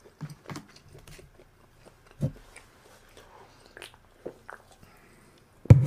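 A person eating and drinking: soft chewing and mouth clicks, and swallows from a soda can partway through, then a sharper knock near the end.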